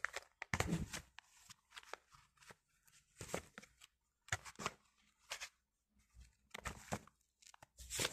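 Paper catalogue pages rustling and crinkling as they are handled and turned, in irregular short bursts.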